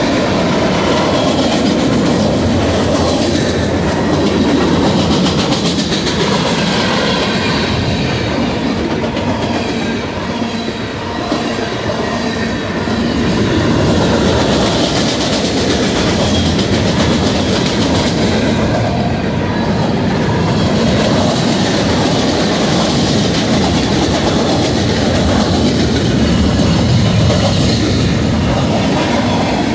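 Freight cars of a Union Pacific manifest train rolling past close by: steel wheels running on the rails in a steady, loud rumble and clatter, easing slightly for a moment about a third of the way through.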